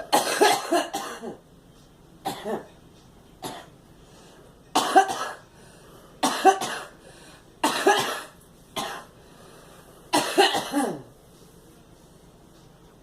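A girl coughing in a fit: about eight separate bouts of coughs, a second or two apart, the first and the last the longest, then stopping about eleven seconds in.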